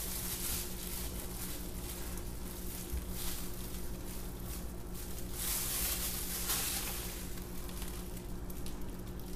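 Red silicone spatula stirring thick soap batter in a plastic pitcher: uneven scraping and sloshing in stretches. A steady low hum runs underneath.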